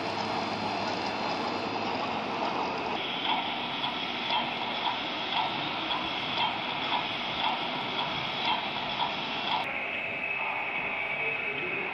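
Model railway train running on the layout: a steady whirring hiss with a soft regular beat about twice a second, which changes abruptly near the end.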